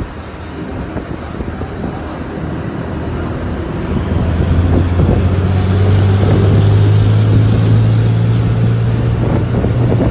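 Road noise from a moving car: a steady low engine hum with tyre and wind noise, growing louder about four seconds in.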